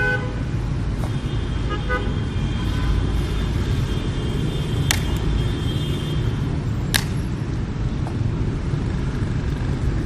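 Steady city street traffic from passing motorbikes and cars, a constant low rumble, with horn toots in the first few seconds. Two sharp clicks stand out about five and seven seconds in.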